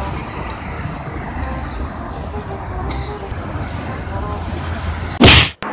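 Steady road traffic noise from a busy multi-lane road. About five seconds in, a brief loud burst is followed by an abrupt cut to silence.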